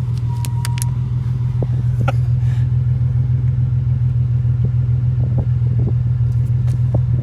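A motor running at a steady idle: an even, unchanging low drone, with a few faint clicks over it.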